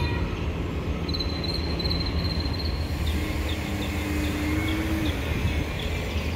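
Railroad grade-crossing warning bell pinging about four times a second, fading to fainter, sparser pings about halfway through, over a steady low rumble.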